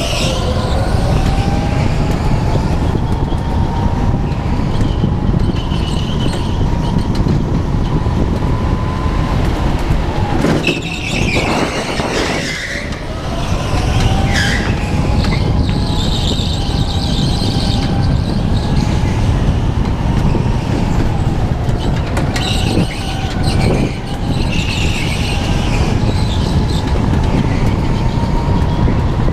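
Rental go-kart running at full speed, recorded from a camera on the kart: a steady rumble and a motor tone that rises and falls with speed. Tyres squeal through several corners, and the kart slows briefly about halfway through.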